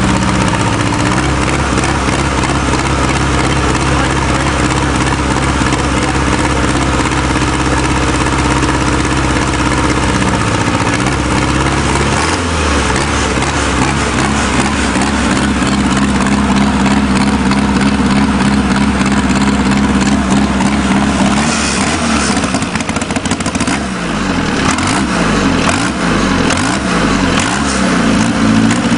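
Small diesel engine of a mini tractor puller running after a cold start. It holds a steady speed for about ten seconds, then changes speed, and over the last several seconds it is revved up and down repeatedly.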